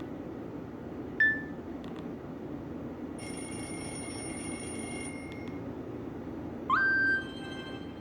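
Short electronic phone tones from a Nokia 130's speaker, playing Nokia Asha 203 alert tones over a steady hiss. A brief high chirp comes about a second in, a steady high multi-note tone holds for about two seconds in the middle, and near the end a loud tone sweeps upward and then holds.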